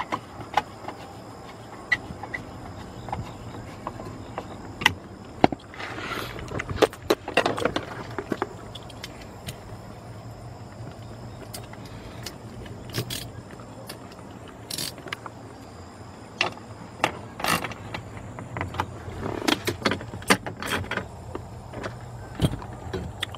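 Hand tools tightening screws: scattered sharp metallic clicks and clatter from a ratchet and screwdriver, denser about six to eight seconds in and again around twenty seconds, over a steady low hum.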